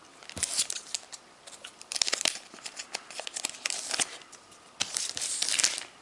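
Foil wrapper of a Pokémon trading-card booster pack being torn open and crinkled, in several short crackly bursts.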